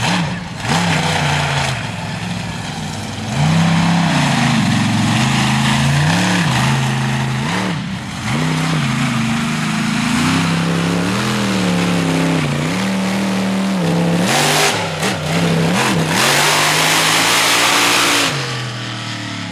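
Monster truck engine revving hard and dropping back again and again as the truck runs the course, with a loud rushing noise for a few seconds near the end.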